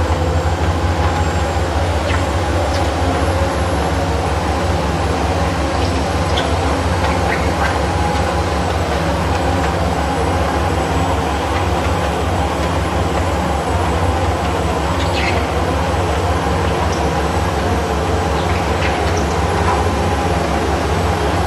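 Bauer BG28H drilling rig's diesel engine running steadily with a deep pulsing hum, with brief high squeaks now and then.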